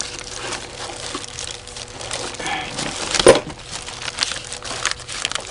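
Crinkling and rustling of the owner's-manual packaging being rummaged out of a tractor glove box, with a sharp knock about three seconds in.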